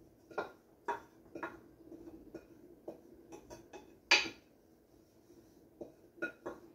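Light knocks of a glass bowl against a metal pot, about two a second, as grated coconut is scraped out of the bowl into the pot, with one louder knock about four seconds in.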